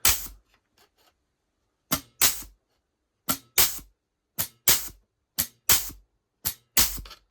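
Clarke pneumatic air joggler working along the edge of 2mm aluminium sheet: about six strokes, roughly one a second, each a short sharp burst followed a moment later by a longer one.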